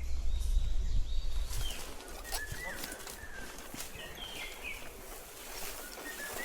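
Small birds chirping, short repeated calls, with scattered sharp clicks. A low rumble like wind on the microphone lasts for the first second and a half, then drops away.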